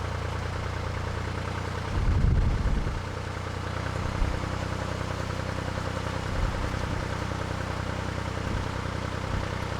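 Narrowboat's diesel engine running steadily at low cruising revs. A gust of wind buffets the microphone with a low rumble about two seconds in.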